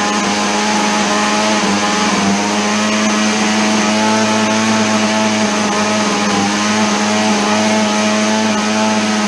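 Two-stroke chainsaw engine running steadily at a near-constant high speed, on a test run with the carburettor's mixture screws set one turn out each.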